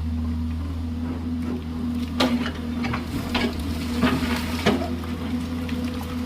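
Excavator engine running steadily, with a series of sharp knocks and scrapes from about two seconds in until nearly five seconds in, as the bucket works into stony, gravelly ground.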